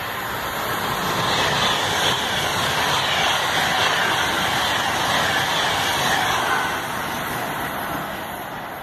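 High-speed electric express passenger train passing at speed, a rushing of wheels on rail and air. It swells over the first couple of seconds, holds, then slowly fades near the end.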